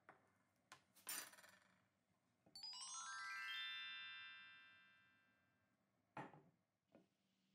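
Edited-in sparkle sound effect: a quick descending run of bell-like chime notes that ring on together and fade away over about three seconds. It comes after a short bright shimmer and a few light clicks, and another click falls about six seconds in.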